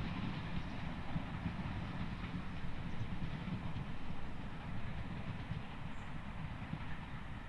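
Distant train hauled by steam locomotive 2890 with Class 25 diesel D7612 running away along the line: a steady low rumble with some wheel clatter, slowly fading.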